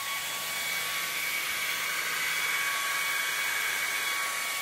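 Laser Tree K30 laser module's cooling fans running steadily just after the module is powered up: a steady whine over a rush of air.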